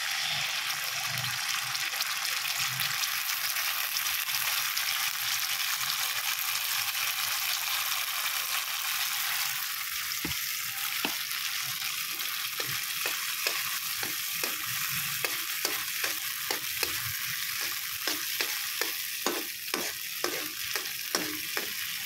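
Tomato sauce sizzling in hot oil with onion and garlic in a wok. From about halfway through, a spoon scrapes and taps against the pan as the sauce is stirred, in irregular clicks that come faster toward the end.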